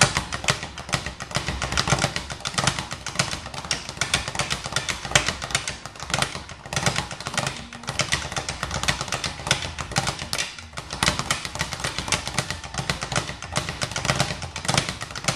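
Speed bag being punched continuously with both fists: a fast, unbroken run of rapid knocks as the bag rebounds off the platform.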